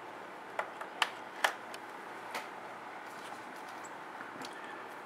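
Several light clicks and taps as a USB cable is plugged into a small circuit board, over a steady faint hiss. The clicks fall in the first half and stop after about two and a half seconds.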